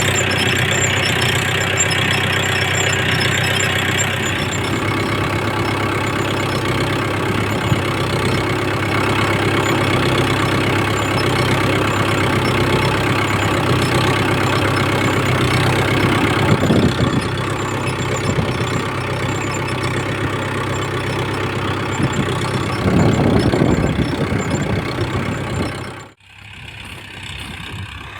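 Mahindra Yuvo 415 DI tractor's four-cylinder diesel engine running steadily as it pulls a reversible plough through hard soil. Near the end the sound drops out suddenly and comes back quieter.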